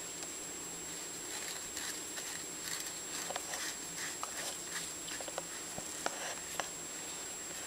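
Screwdriver turning a screw in a small metal part of a Stanley No. 113 compass plane: light scratchy scraping and small metallic clicks, scattered through the middle few seconds, over a faint steady high-pitched whine.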